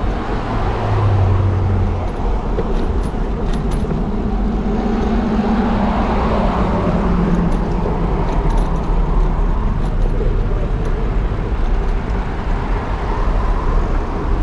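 Road traffic: cars passing close by over a steady low rumble, one engine tone swelling and dropping slightly in pitch around the middle.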